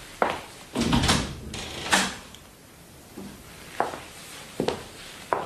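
Door and wooden clatter sound effects in a radio play: about half a dozen sharp knocks and bumps spaced over a few seconds, the loudest about one and two seconds in.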